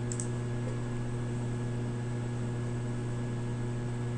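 Steady electrical hum with a few higher overtones over an even hiss, the background noise of the recording chain, with a faint click at the very start.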